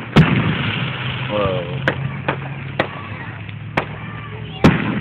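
Fireworks going off: a loud bang just after the start and another near the end, with four smaller pops between, over a steady low hum.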